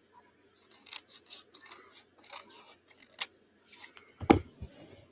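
Scissors cutting paper in a run of short snips, followed about four seconds in by a loud thud, the loudest sound, and a smaller knock just after.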